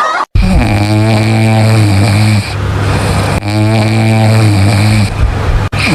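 A person snoring very loudly, with long, deep, buzzing in-breaths of about two seconds each and a breathy out-breath between them. The sound is loud enough to be mistaken for a motorcycle engine.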